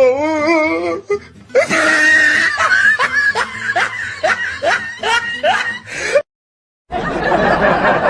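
Laughing sound effects played one after another. First a wavering, warbling laugh for about a second, then one voice laughing in rhythmic "ha" pulses, about two or three a second, that cut off abruptly. After a brief silence, a dense, noisy stretch of laughter starts near the end.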